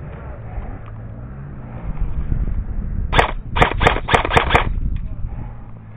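Airsoft rifle firing a quick string of about six shots, a little over three seconds in.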